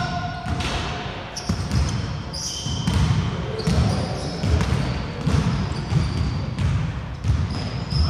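Basketball bouncing on a wooden court floor, the bounces coming irregularly, with short high squeaks between them.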